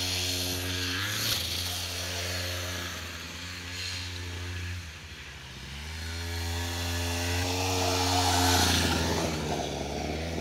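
Small dirt bike engine running, easing off and fading a little around four to five seconds, then rising in pitch as it speeds up, loudest near the ninth second before dropping back.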